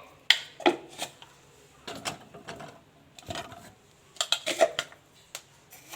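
Spice containers and kitchen utensils handled on a counter: a string of sharp clicks and taps with a few brief rustles, busiest about four seconds in.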